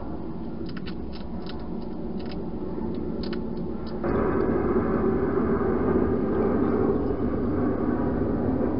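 Steady rumbling background noise of a night-time garden camera recording, with a few light clicks in the first half. About four seconds in, at a cut, it steps up to a louder, fuller noise.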